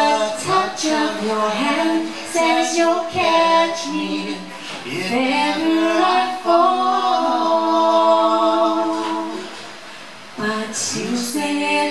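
A woman singing a slow ballad with long held notes, performed live. The singing drops away briefly about ten seconds in and then picks up again.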